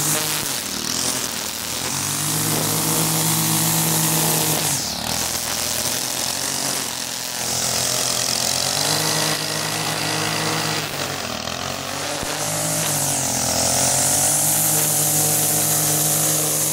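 Gas string trimmer (weed eater) edging grass along a wet concrete driveway. Its small engine revs up and eases back several times as the throttle is worked, under the steady hiss of the spinning line.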